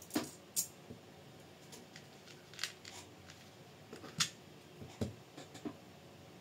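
Small metal parts and hand tools clicking and tapping while a scale RC crawler chassis is screwed together: about half a dozen short, sharp clicks at uneven gaps, the loudest about four seconds in.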